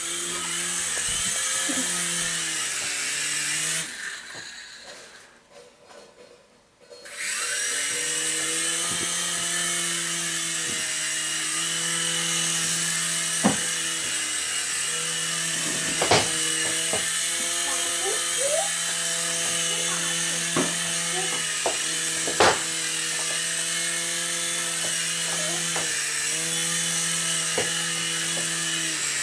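Falcon X micro RC helicopter's small electric rotor motors whining steadily in flight, the pitch bending slightly with the throttle. The whine cuts out about four seconds in and spins back up about three seconds later; a few sharp knocks come later on.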